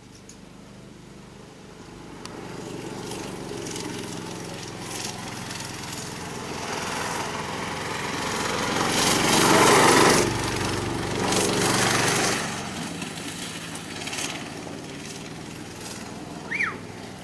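Racing kart engine running at speed, growing louder as the kart approaches, loudest about ten seconds in as it passes close by, then fading as it pulls away.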